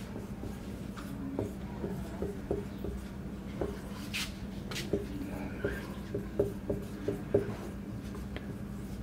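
Felt-tip marker writing on a whiteboard: a string of short squeaks and taps as letters are formed, with a few longer hissing strokes about four seconds in. A steady low hum runs underneath.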